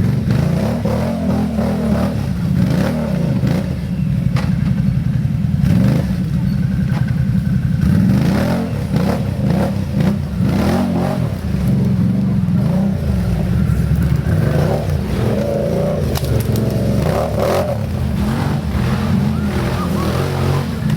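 ATV engine revving up and easing off again and again under load, with scattered knocks and clatter.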